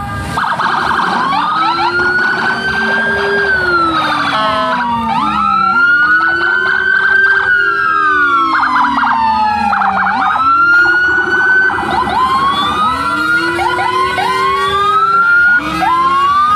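Several police escort sirens wailing at once, their pitches sweeping up and down out of step with each other, with short rapid warbling bursts in between.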